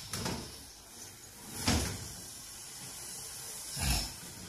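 A wooden stirring stick working thick water fufu in a metal cooking pot on a gas burner, with three dull thumps about two seconds apart.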